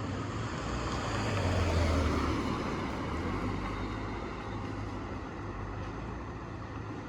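Street traffic: a vehicle engine passes by, growing louder to a peak about two seconds in and then fading away over a steady low hum.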